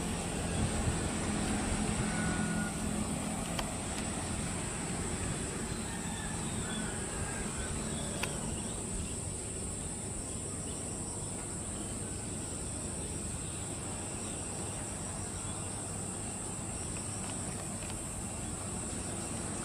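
Jet engines of an Airbus A320 at taxi idle, a steady distant engine noise with a low hum that fades after the first several seconds. Insects chirp in a steady high-pitched band.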